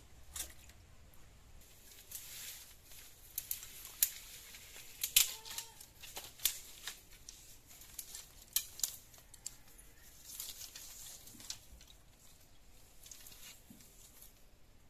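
Dry bamboo sticks and straw rustling and clattering as they are pulled from a pile, with many sharp cracks and clicks, the loudest around the middle.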